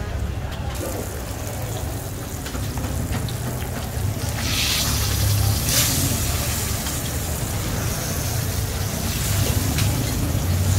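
Fish deep-frying in woks of hot oil, a steady sizzling hiss that comes up about four seconds in, over a low steady rumble.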